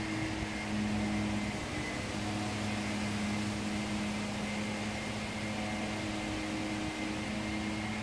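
Steady mechanical hum of a running motor, with a couple of held low tones and a faint high whine over an even hiss.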